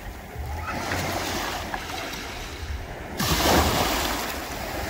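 Small sea waves breaking and washing up a pebbly shore, with a louder wash of surf about three seconds in. Wind rumbles on the microphone underneath.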